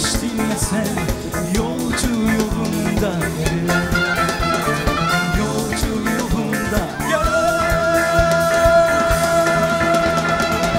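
A male singer performing an upbeat Turkish pop song live with a band. About seven seconds in, he holds one long note to the end.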